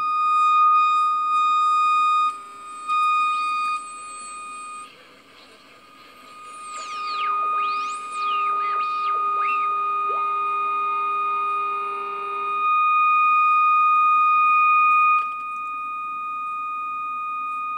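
AM radio speaker sounding the test tone of a Conar 281 RF signal generator it has tuned in: a steady, high whistle-like tone that jumps and dips in loudness as the generator's levels are adjusted. Near the middle, whistles sweep down and back up as the generator is tuned across the radio's frequency, and a lower steady tone sounds alongside for a few seconds.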